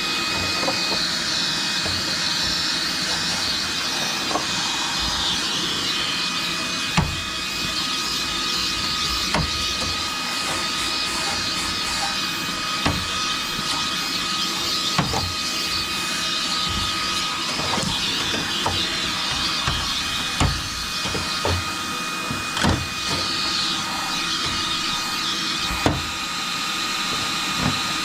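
A small high-speed electric motor moving air, as in a cordless vacuum or air duster, running steadily with a high whine and a rushing hiss. A dozen or so brief knocks are scattered through it.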